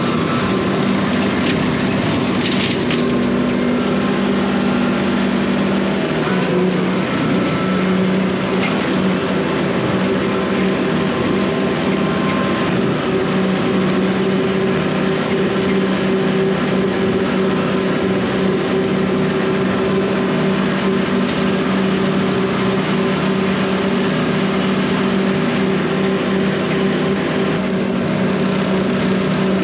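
Tractor diesel engine running steadily under load while bush hogging, driving a rotary cutter through field growth; the engine note dips slightly about six seconds in, and brief crackles are heard near the start.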